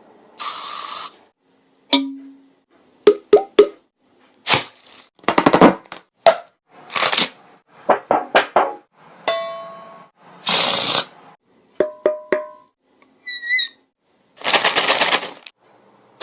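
A person making sound effects with the mouth: a quick string of separate short noises, hisses, clicks and pops, a few whistle-like tones and a warbling chirp, with short silences between them.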